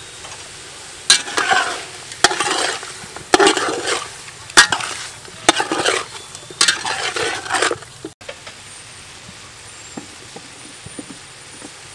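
Metal ladle stirring raw chicken pieces and seasoning in a large metal pot: about six strokes, roughly one a second, each a sharp knock of the ladle on the pot followed by a wet scrape through the meat, then the stirring stops about two-thirds of the way through.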